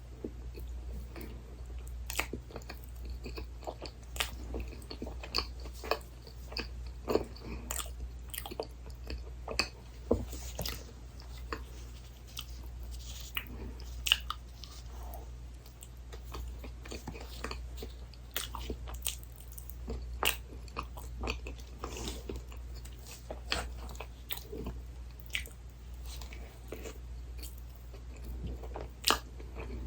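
Close-miked eating of desserts: repeated bites and chewing with small crisp crunches and sticky mouth clicks, over a steady low hum.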